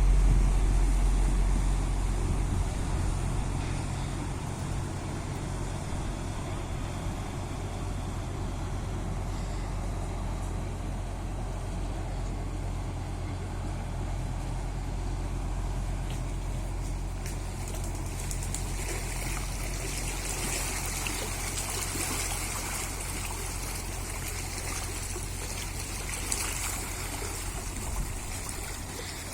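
Water trickling and running in a small stream. Low wind rumble on the microphone fades over the first few seconds, and the running water grows brighter in the last third.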